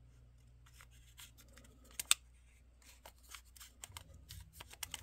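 Faint clicks and handling noises from hands working a G.I. Joe muscle body's plastic torso and leg, with one sharp click about two seconds in and a few small clicks near the end.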